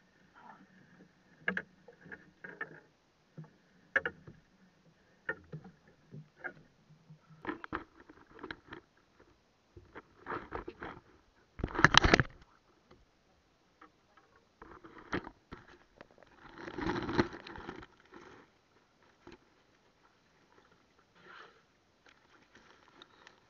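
Knocks, rubs and scrapes on a small paddle boat's hull as a fishing net is hauled in by hand over the side. A short loud burst of rubbing about halfway through and a longer one a few seconds later stand out above scattered knocks.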